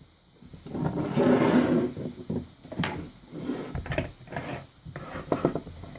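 Rummaging on a workbench: a sliding scrape about a second in, then several knocks and clunks as tools and objects are handled and set down.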